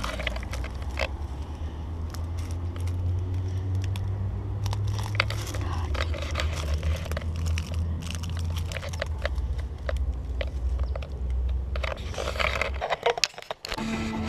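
Footsteps crunching on dry wood mulch and brushing through shrubs, as irregular crackles and snaps over a steady low rumble.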